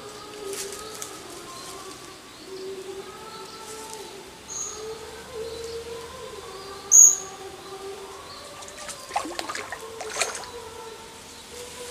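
Birds calling, with one sharp high chirp about seven seconds in as the loudest sound, and a few light clicks and rustles near the end.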